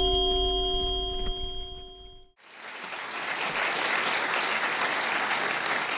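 Bell-like chime tones ring on and fade, cutting off about two seconds in; then an audience applauds.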